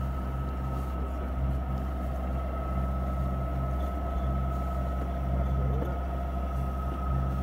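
A sailboat's engine running at a steady speed: a constant low drone with a thin steady tone above it.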